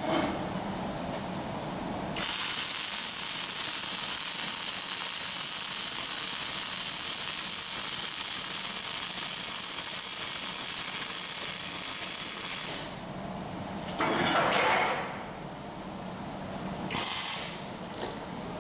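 Wire-feed welding arc on a steel angle-bar joint: the arc strikes about two seconds in, runs steadily for about ten seconds as a bead is pushed across the joint, then stops. A brief second burst follows near the end.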